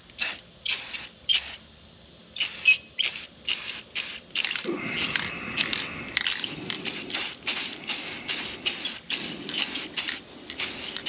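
Aerosol can of Rust-Oleum wheel paint hissing in many short bursts as a light first coat goes onto a wheel. The bursts are spaced apart at first and come closer together after about four seconds.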